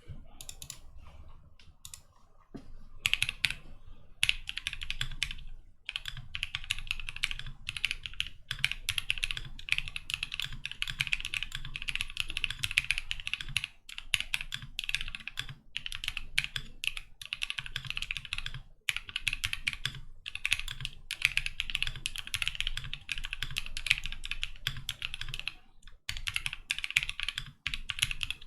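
Bakeneko60 mechanical keyboard with Gazzew Boba LT switches being typed on. A few scattered keystrokes at first, then quick, continuous typing with a few short pauses.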